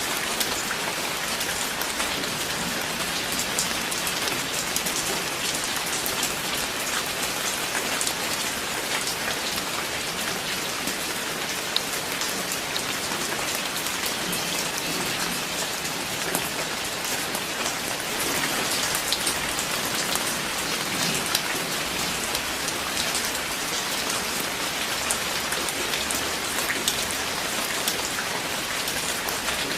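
Steady, even rain, with many individual drops striking close by as fine sharp ticks over the hiss.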